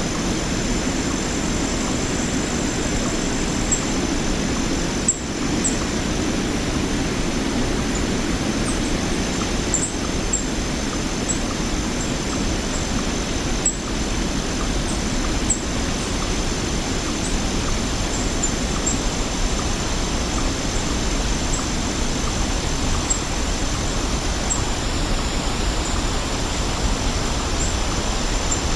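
Waterfall rushing steadily, with short high bird chirps scattered every second or two and a faint steady high-pitched tone underneath.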